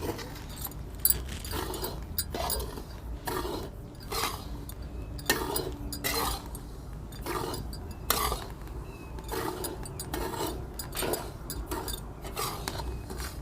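Metal scraper stirring and scraping semolina around a kadhai: repeated scraping strokes, roughly one or two a second, with a few sharper clinks of metal on the pan.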